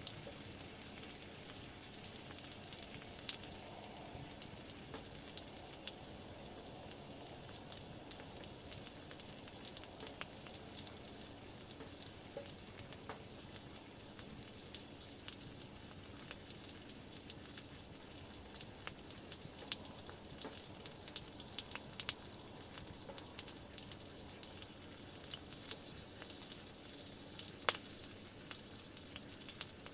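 Meat sizzling in a pan on a wood-burning stove: a steady frying hiss with scattered small spits and pops, and one sharper pop near the end.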